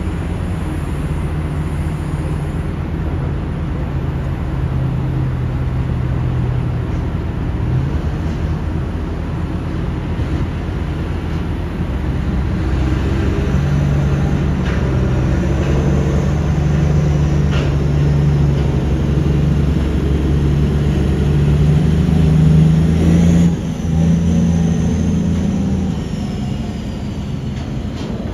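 A Cat 6020 hydraulic mining shovel and a mining haul truck working under load make a steady, heavy machine drone. The pitch rises about halfway through and dips sharply near the end, with a thin falling whine over the last few seconds.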